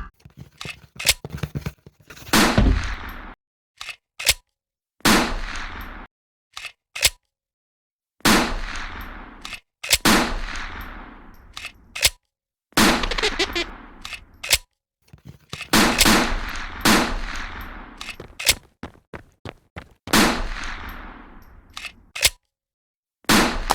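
Sniper rifle sound effects: repeated short mechanical clicks of the rifle being loaded, each round followed by a loud shot whose echoing tail fades over two to three seconds, about eight shots in all.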